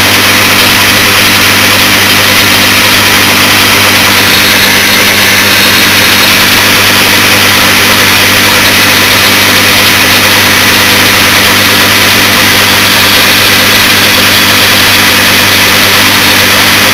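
1942 South Bend lathe running steadily: a constant hum with a steady hiss over it.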